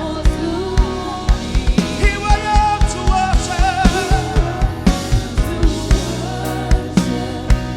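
Live gospel worship music: a band with drum kit keeping a steady beat, about two hits a second with a quicker run of hits early on, under singing.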